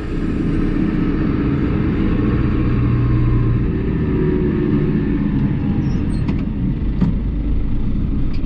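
Case 1090 tractor's diesel engine running steadily, with two short clicks about six and seven seconds in.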